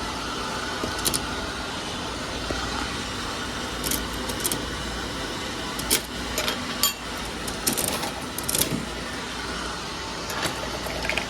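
Coins jingling and sharp metallic clicks from working a coin-operated capsule vending machine, over a steady hum of background noise. The clicks come scattered through the middle of the stretch.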